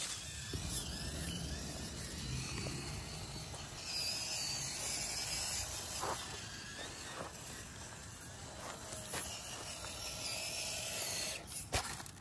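Small electric motor and gear drive of a 1/18-scale RC crawler truck whining as it crawls, louder for a couple of seconds about four seconds in. Several sharp knocks near the end as the truck tips over.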